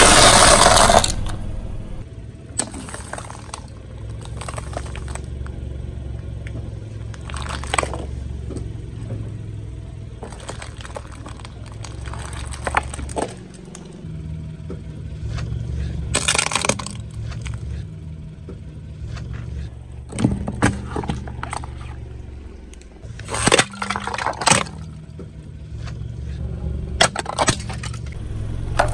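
A car tyre rolling slowly over objects and crushing them. It opens with a loud crunch as a crisp fried snack breaks under the tyre. After that comes the car's low rumble, with scattered sharp cracks and snaps as things break under the wheel.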